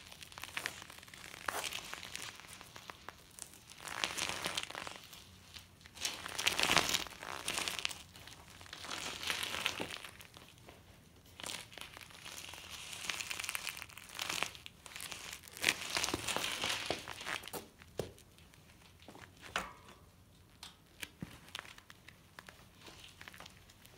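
Nearly flat knobby mountain-bike tyre rolling slowly back and forth over a gritty concrete floor, its tread crunching and crackling against the grit in several swelling surges, with scattered clicks.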